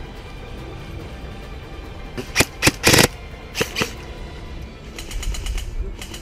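Airsoft guns firing several short bursts of rapid shots. The loudest come a little over two seconds in, and a faster, quieter run comes about five seconds in, over background music.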